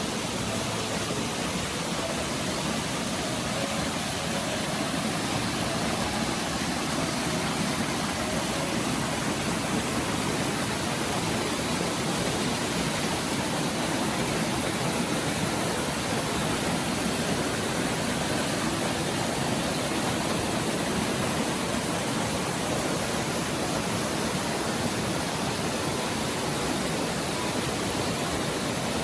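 Water from the Geomnyongso spring stream rushing steadily, an even, unbroken rush.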